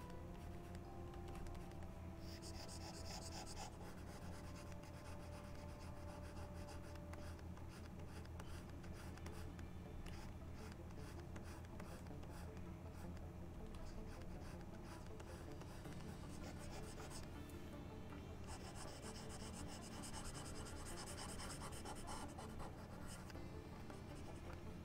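Faint scratching of a pen stylus stroking across a drawing tablet, loudest in a short stretch about two seconds in and a longer one near the end, over a low steady hum.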